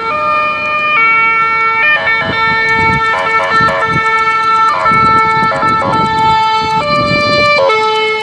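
Ambulance siren sounding two alternating tones, high and low. It switches about once a second, with a stretch of quicker switching in the middle.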